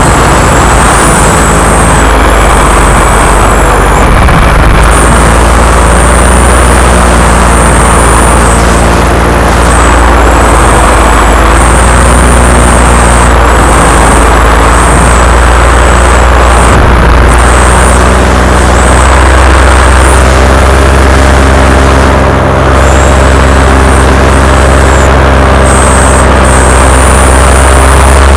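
Paramotor engine and propeller running loud and steady behind the pilot in flight, the engine note creeping slightly higher in the second half.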